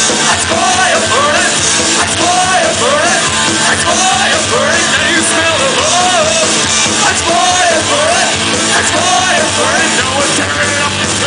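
Punk rock band playing live, with electric guitar and drums under a singer's vocal line that rises and falls in short repeated phrases. It is loud and dense throughout.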